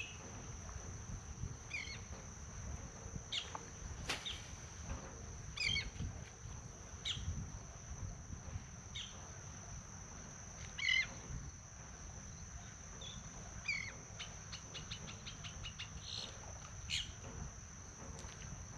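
Insects buzzing steadily at a high pitch, with short bird chirps every second or two and a low rumble underneath.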